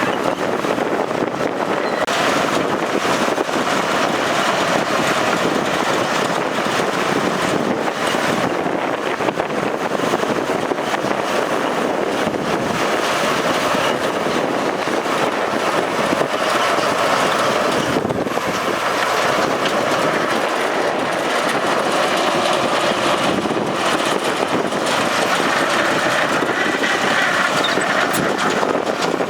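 Heavy diesel machinery, the bulldozer and dump truck, running steadily under load in a loud, even drone.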